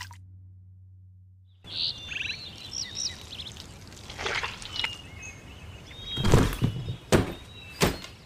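Background music fades out in the first second and a half. Then birds chirp while a shovel works wet mud and old earth blocks are set down, with three dull thuds near the end, the first the loudest.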